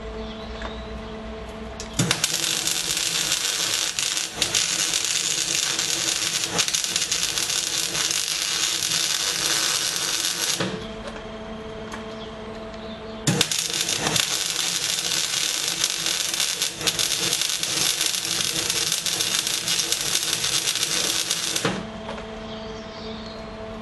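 Aluminium MIG welding with a spool gun, probably on minimum current: two runs of steady arc crackle and hiss, each about eight seconds long. A quieter steady hum with a few fixed tones is heard before, between and after the runs.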